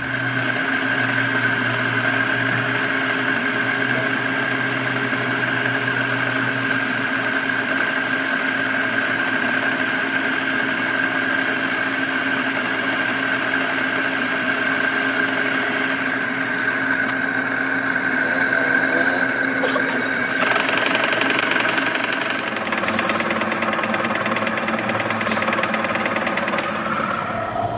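Metal lathe running, with a boring tool cutting inside a small metal part held in a four-jaw chuck: a steady machine hum with a high gear whine, whose tone shifts about twenty seconds in.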